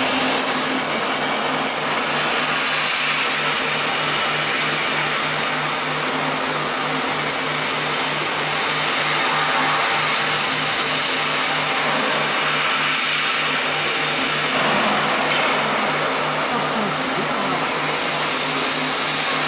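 The HS 655 spindle head of a five-axis CNC router milling an aluminium extrusion. It makes a steady, loud cutting and spindle noise, with a low hum beneath that pulses evenly a couple of times a second.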